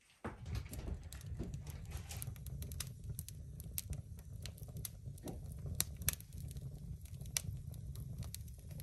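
Split logs burning in the open firebox of a wood stove: scattered crackles and pops over a steady low rumble.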